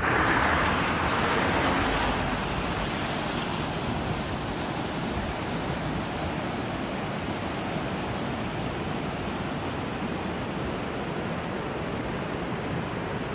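Sea surf washing onto a beach: a louder rush of water in the first two seconds that settles into a steady hiss.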